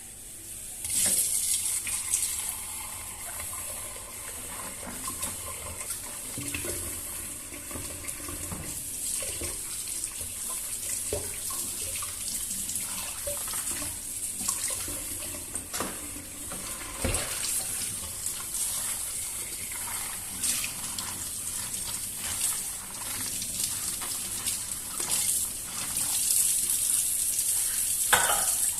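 Water running from a tap into a sink, starting about a second in and getting louder near the end, with occasional light knocks and clinks while something is washed under it.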